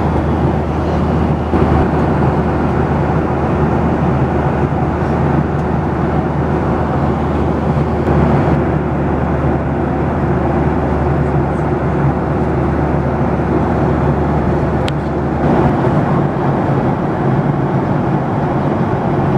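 Cabin noise of a Boeing 737-800 in flight: a steady rush of engine and airflow noise with a low hum. The lowest part of the hum drops away about three-quarters of the way through.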